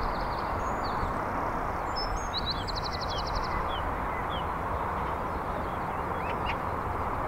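Small birds chirping, with short high calls throughout and one rapid trill about two and a half seconds in, over a steady low outdoor rush.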